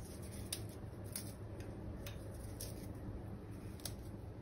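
Chocolate sandwich cookies being snapped into pieces by hand: faint, scattered crisp clicks over a low steady hum.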